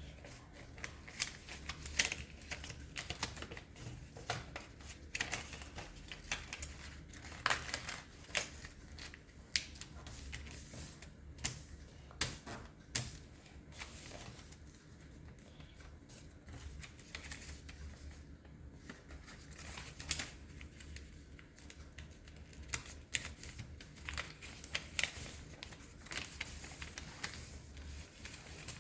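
Sheet of paper being folded and creased by hand: irregular crinkles, rustles and short sharp creasing clicks, over a faint low hum.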